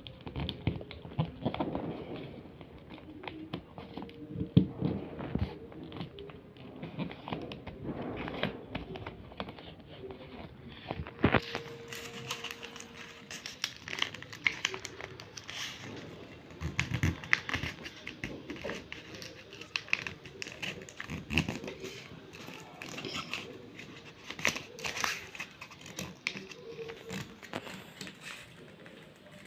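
Sheet of paper being handled, folded and creased, making irregular crackling rustles.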